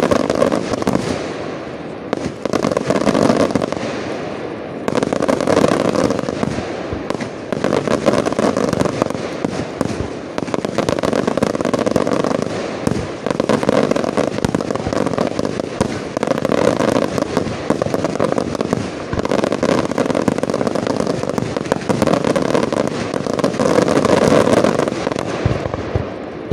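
Professional fireworks display: a dense barrage of aerial shells bursting one after another, with thick crackling and bangs. The loudness rises and falls in waves every two or three seconds.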